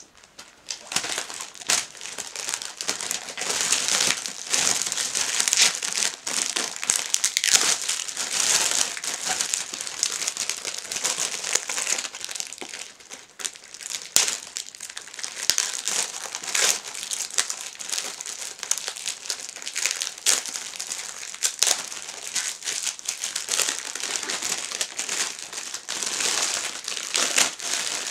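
Clear plastic bags crinkling without a break as books are handled and pulled out of their wrapping.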